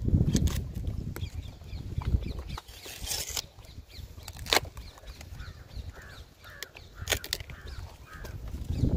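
A toddy tapper's curved knife working the flower stalks of a palmyra palm, with sharp clicks at intervals, over a low wind rumble on the microphone. Faint bird chirps come in during the second half.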